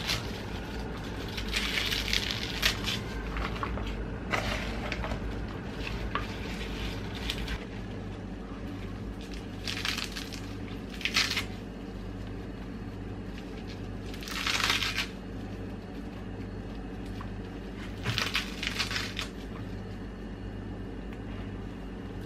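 Fresh lettuce and spinach leaves being torn by hand and dropped into a plastic bowl: short crisp tearing sounds, a few seconds apart, over a low steady hum.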